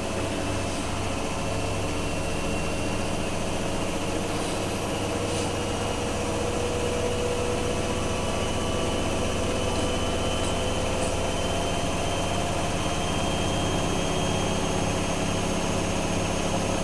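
Miele washing machine drum spinning up slowly in its first interim spin, nearly at 1000 RPM, with a steady hum and a high motor whine that rises slightly in pitch as it gets a little louder. The owner thinks the slow ramp-up may be to prevent a suds lock with the full load.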